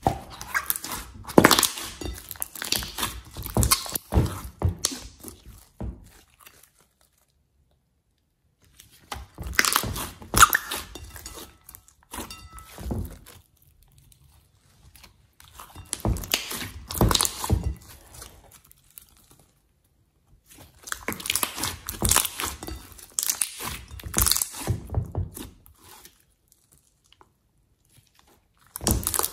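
Thick, glossy slime being stretched, folded and pressed by hand, giving sticky crackling and popping as trapped air bubbles burst. It comes in bursts a few seconds long with short silences between.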